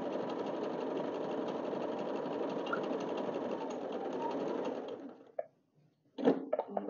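Yamata FY-930 portable sewing machine running steadily, stitching a decorative pattern through fabric. It slows and stops about five seconds in, and a few short clicks follow near the end.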